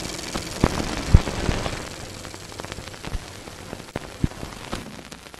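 Old-film projector crackle: a steady hiss dotted with irregular clicks and pops, gradually getting quieter.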